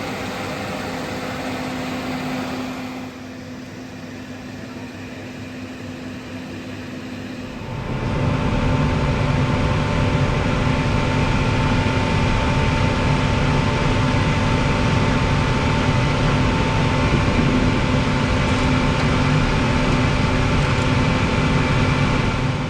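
Steady mechanical drone with a few constant tones, becoming markedly louder about eight seconds in and then holding steady.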